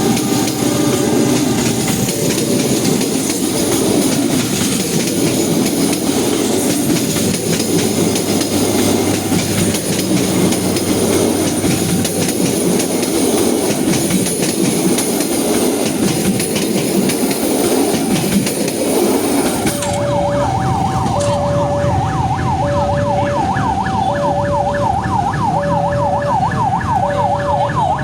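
Train rolling slowly past, its wheels clattering over the rail joints. About two-thirds of the way in the sound cuts abruptly to a repeating two-tone electronic warning alarm with a fast warbling sweep above it.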